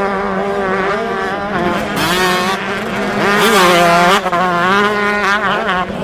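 Motocross dirt bikes racing: several engines revving up and dropping back over and over as the riders work the throttle around the track.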